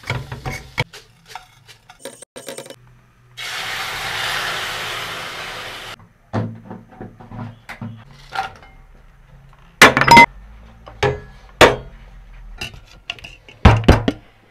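Stainless-steel pans and utensils clinking and clattering in sharp knocks, loudest about ten seconds in and again near the end. About three seconds in comes a steady sizzle lasting a couple of seconds, as milky liquid goes into a hot pan of cashews and raisins frying in fat.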